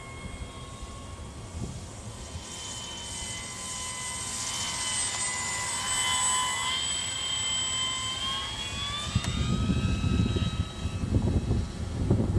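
Electric motor and propeller of a radio-controlled Profile Kellet kit gyrocopter whining in flight overhead. It grows louder toward the middle and its pitch rises a few seconds before the end. Gusty wind rumble on the microphone comes in near the end.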